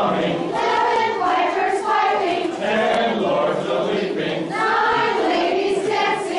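A large group of voices, men, women and children, singing a Christmas carol together.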